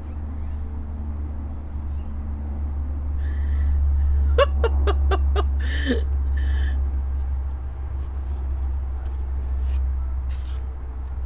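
A steady low rumble runs throughout. A little over four seconds in comes a quick run of about five short, high calls, then one call that slides down in pitch, with a few brief soft hisses scattered around them.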